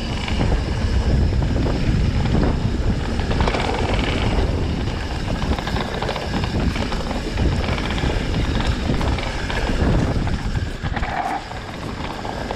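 Wind buffeting a handlebar-mounted camera while a mountain bike runs down a dry dirt trail: tyres rolling over dirt and stones, with frequent small rattles and clicks from the bike over bumps.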